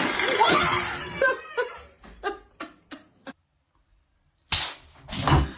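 A person laughing in a series of short bursts that die away, then a pause and two loud rustling bursts near the end.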